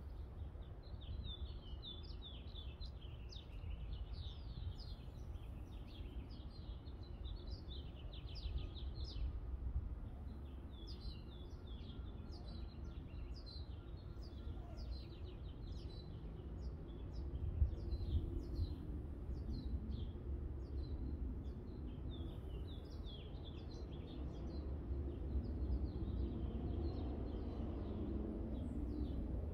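Small birds chirping in quick, repeated twitters over a steady low outdoor rumble.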